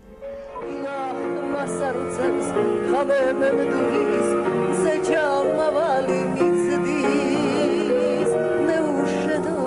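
Music: a song starting up, with a singer using vibrato over instrumental accompaniment, growing louder over the first second.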